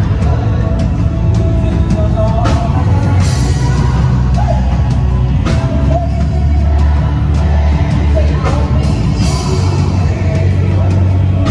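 Live band music with a heavy bass line and drums, and voices singing over it.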